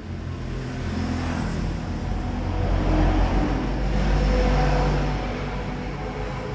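An engine revving up and easing back down, louder about three to four seconds in.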